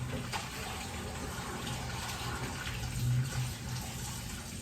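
Kitchen faucet running steadily into the sink while a plate is washed by hand, with a few faint clinks.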